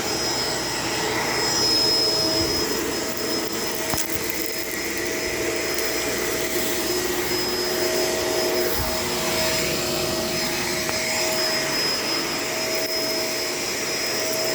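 Shark LA702 vacuum cleaner running steadily, its motor whine holding a constant pitch.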